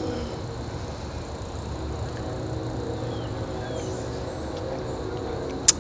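Steady low outdoor rumble with a few faint bird chirps, and one sharp click near the end.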